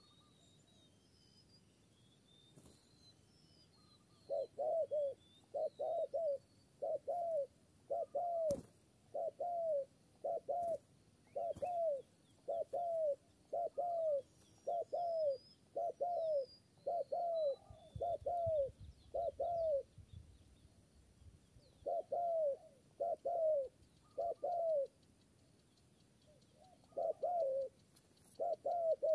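Spotted dove cooing in a steady series of short coos, about one a second, with a couple of brief pauses. Faint high chirps of a small bird come early on, and there is a single click.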